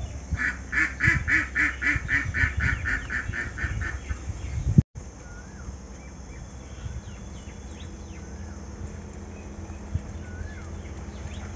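A duck quacking in a rapid, even run of about fifteen quacks, roughly four a second, which breaks off abruptly about five seconds in. After that, a small bird gives faint short chirps every second or two.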